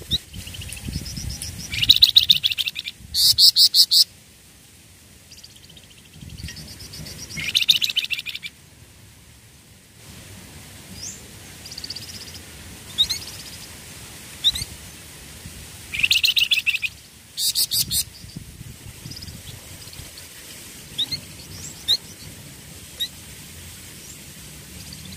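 Flamboyan songbird singing in short bursts of fast, repeated high notes, about five bursts, with single sharp chirps scattered between them.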